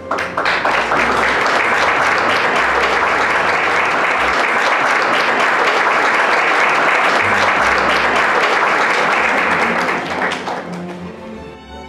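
Audience applauding, a dense crowd of clapping that starts at once and dies away about ten seconds in, with instrumental music underneath that is left on its own near the end.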